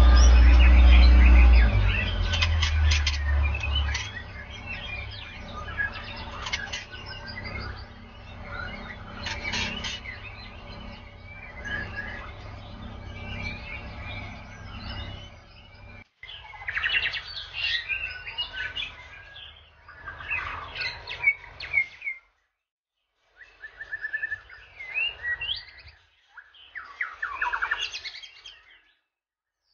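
White-rumped shama singing a varied song of whistles and rapid chirps. A loud low hum sits under the first couple of seconds and a fainter steady hum under the first half; in the second half the song comes in three short bursts with brief pauses between.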